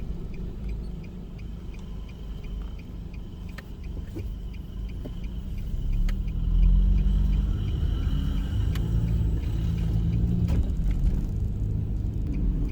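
Car driving, heard from inside: steady road and engine rumble that grows louder about six seconds in as the car speeds up, with a faint regular ticking over it.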